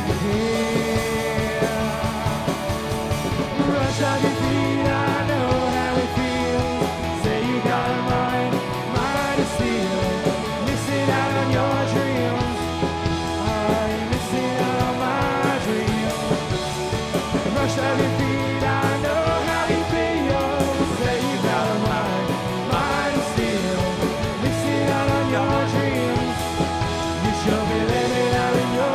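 Indie pop-rock band playing a song with electric guitars, bass and drum kit, the bass stepping between held notes every second or two, with some singing.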